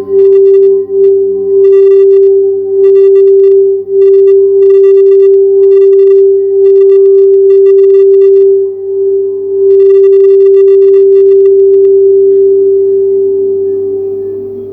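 Quartz crystal singing bowl sounding one loud, steady held tone with fainter lower tones beneath it, as it is played around the rim with a mallet, which gives a light chattering about once a second. The chattering stops about eleven seconds in and the bowl rings on, fading.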